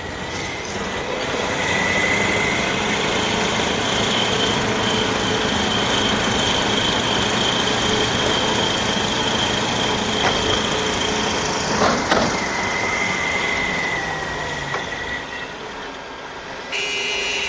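Heavy diesel engines of wheeled tractors and a crawler bulldozer running hard under load as the bulldozer is dragged out of deep snow, a steady dense drone with a high whine over it. A single sharp knock about twelve seconds in.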